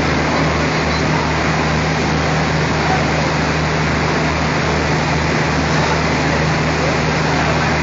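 Diesel locomotive's engine running with a steady low hum as the locomotive creeps slowly toward the platform.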